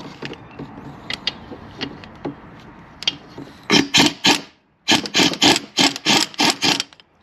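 Ratchet wrench clicking as transmission mount bolts are worked loose: scattered light clicks, then a few loud ratcheting strokes, and after a brief pause a quick run of about eight strokes at roughly four a second.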